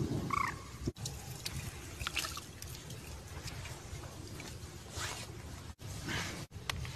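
A small fish being lifted out of the water on a fishing line and grabbed by hand: scattered rustles, drips and light clicks of the tackle and handling. A short rising chirp sounds about half a second in.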